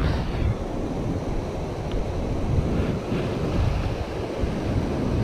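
Shallow ocean surf washing and churning close to the microphone, with wind rumbling on the microphone.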